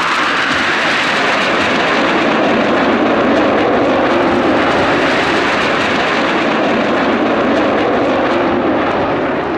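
A formation of Northrop F-5E Tiger II jets flying past low, a loud, steady rush of jet noise that swells a little about three seconds in and holds.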